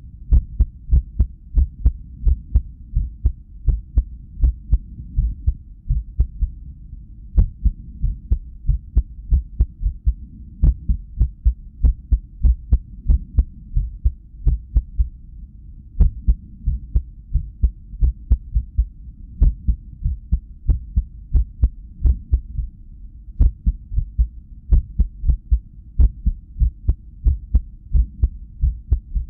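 Human heartbeat from a resting cardiac ultrasound recording: repeated low thumps in an uneven rhythm, with a longer gap every so often. The irregularity is an arrhythmia, which the owner puts down to lack of sleep.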